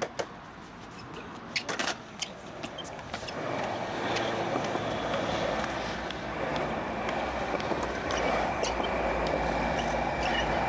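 Skateboard wheels rolling on a concrete skatepark surface, a steady rumble that builds about three seconds in, after a few sharp knocks of the board near the start.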